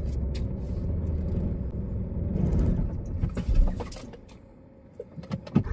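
Car engine running with a brief surge about three and a half seconds in, then cutting out about four seconds in, followed by a few sharp clicks. The car keeps switching off by itself, and the owners suspect a gear problem.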